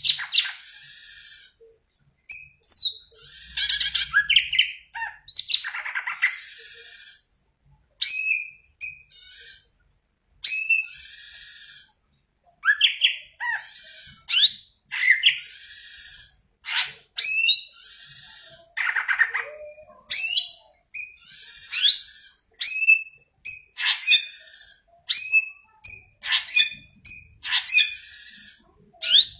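Cucak ijo (green leafbird) singing vigorously: a long run of short phrases, each made of quick whistled sweeps and harsh chattering notes, repeated every second or two with brief pauses.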